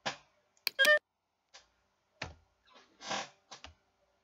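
Computer keyboard keys and mouse clicks as a value is typed into pattern-drafting software, with a short stepped electronic beep from the computer just before one second in.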